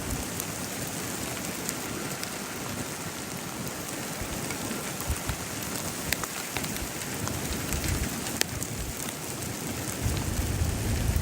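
Steady heavy rain hitting a surface, with scattered sharp drop impacts. Low wind rumbles on the microphone from about ten seconds in.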